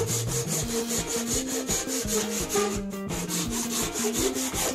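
Small replaceable-blade hand saw cutting fast through a 1.5-inch-square piece of dry poplar held in a vise, at about five rasping strokes a second, with a brief pause near the middle.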